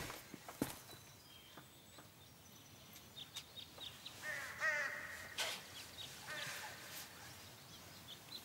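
Outdoor bird ambience: short high chirps come and go, one harsh wavering call like a crow's caw sounds about four and a half seconds in, and a few light knocks are scattered through.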